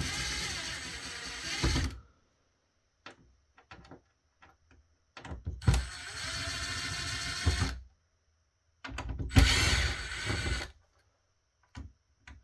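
Cordless electric screwdriver running in three bursts of about two seconds each, backing motherboard screws out of a network switch, with small clicks of the bit and screws in between.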